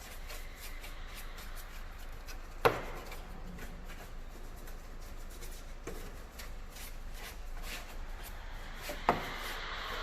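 Light rubbing and scraping from cleaning by hand, with scattered small clicks and two sharp knocks, one about three seconds in and one near the end.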